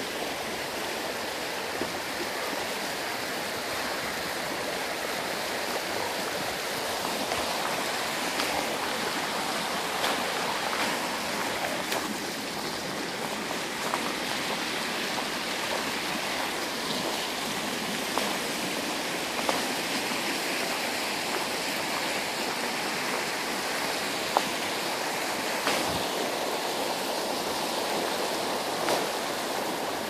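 Minnehaha Creek rushing over shallow rapids, a steady even water noise, with a few faint clicks here and there.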